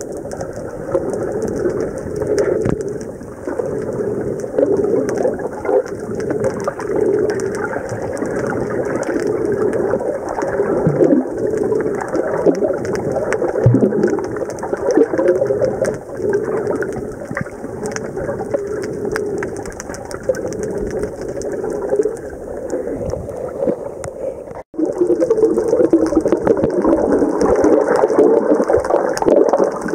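Muffled sound recorded underwater: a steady watery rush with low gurgles and sweeps from the swimmer's movement. It cuts out for an instant about 25 seconds in, then carries on.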